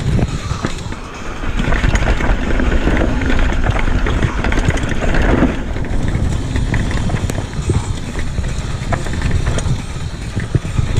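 Retro downhill mountain bike riding fast down a dirt forest trail: a steady rumble of wind and tyres on the dirt, with the bike's chain and parts clattering in many short knocks over the bumps. A brighter hiss of the tyres runs for a few seconds early in the descent.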